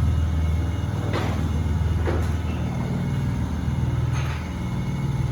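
A steady low machine hum with a few short knocks or clanks on top, the first about a second in and the last a little past four seconds.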